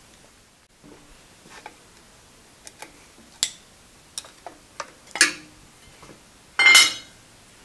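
Small metallic clicks and taps of a screwdriver and hands working the mounting screws of a digital readout scale on a drill mill's head, taking it apart. About a second from the end comes a louder, briefly ringing metal clatter.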